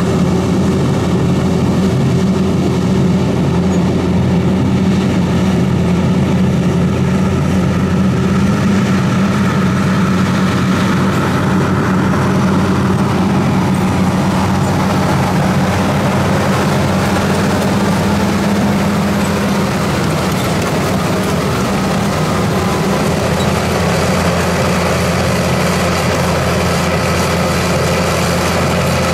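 New Holland D180 crawler dozer's diesel engine running steadily under load as it pushes soil with its blade, with the mechanical noise of the working machine over the hum.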